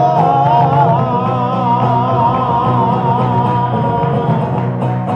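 Flamenco song with two Spanish guitars, the male singer holding one long final note that fades out about four seconds in while the guitars play on.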